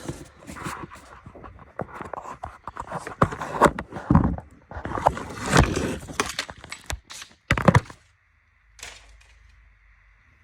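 Cardboard shipping box being handled and opened: a run of irregular thunks and scrapes, with a sharp knock near the end, then it goes almost quiet.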